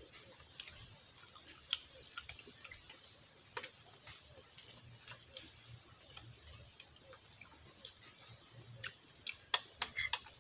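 Quiet eating sounds: chewing and mouth smacks, with scattered sharp clicks and taps of spoons on a plate.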